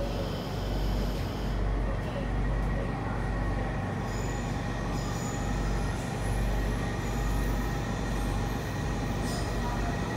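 Rome Metro train running through the tunnel, heard from inside the carriage: a steady rumble of wheels on track that swells and ebbs, with a thin steady high tone and a faint whine slowly rising in pitch over it.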